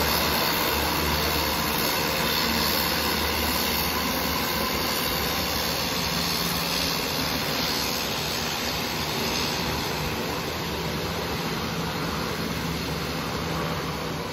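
Single-engine floatplane's engine and propeller running steadily as it taxis away across the water, the sound slowly fading as it moves off.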